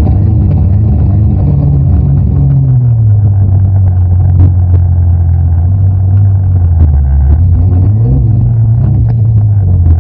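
Snowmobile engine running under load through deep powder. Its pitch drops about two to three seconds in and holds lower, then rises briefly around eight seconds before falling back.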